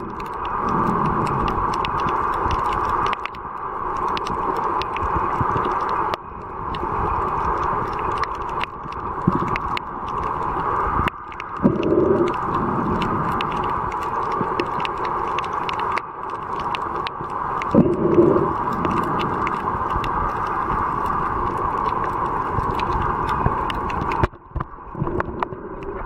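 Underwater ambience picked up by a camera in the sea: a steady muffled rush with many small crackling clicks, and a louder low whoosh now and then, at the very start, about twelve seconds in and again about eighteen seconds in.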